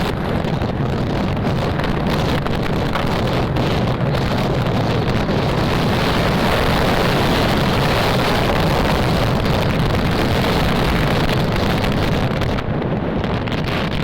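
Wind buffeting the microphone of a moving motorcycle, with the motorcycle's engine running steadily underneath on a downhill ride; the high hiss thins out about a second before the end.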